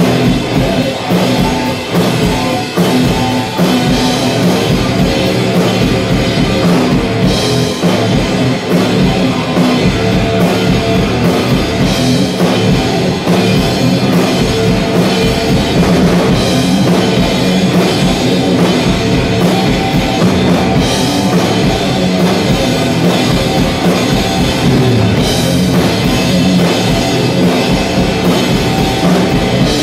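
Heavy rock instrumental played live on electric guitar and drum kit: a steady riff over driving drums, with cymbal crashes every few seconds.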